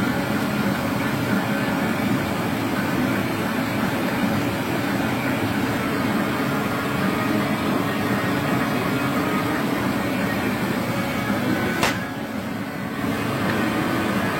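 Steady mechanical rumble, with one sharp click about twelve seconds in.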